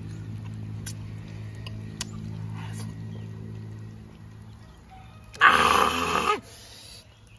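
A low, steady hum, then about five seconds in a man's loud, short vocal outburst, his reaction on tasting a sharp chilli, salt and lime dipping sauce.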